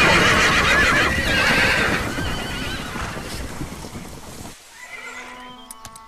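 Young Lipizzaner horses whinnying, several shrill, wavering calls overlapping, from foals just weaned from their mares and calling for them. The calls fade over about four seconds, then cut away, and soft music begins near the end.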